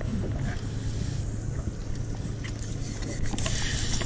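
Boat engine idling: a low steady hum under wind and water noise, with a few faint scratchy strokes near the end.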